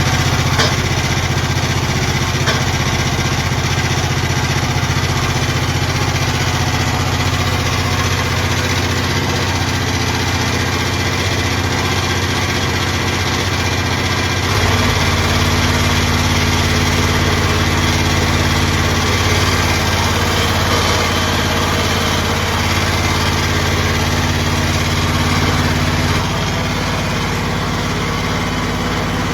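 A small engine running steadily, its speed shifting about halfway through and again near the end.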